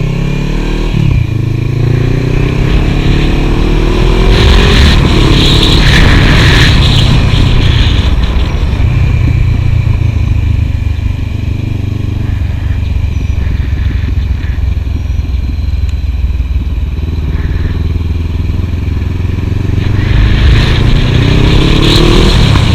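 Honda CB500F's parallel-twin engine running through a Delkevic carbon-fibre slip-on exhaust. It climbs in pitch as it accelerates, drops about a second in, climbs again, then holds a steady drone for a long stretch before climbing once more near the end.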